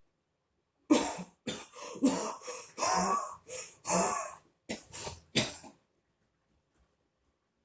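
A person coughing in a fit of about ten coughs in quick succession, some short and sharp, some longer and hoarser, before it stops.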